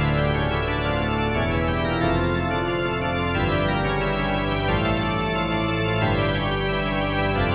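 Credits music played on an organ: sustained chords with a moving melody over steady bass notes.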